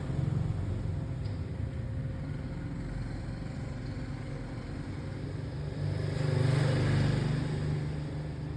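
A vehicle engine hum, steady and low, that swells louder about six seconds in and then fades away.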